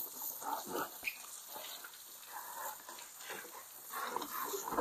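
Hand scrubbing the wet rear bumper and number plate of a car with a cloth: irregular, short rubbing strokes.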